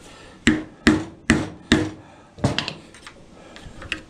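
Hammer tapping the end of a screwdriver to drive its blade up under the tabs of a plastic radiator end tank: four blows about 0.4 s apart, a fifth after a short pause, then a few light clicks.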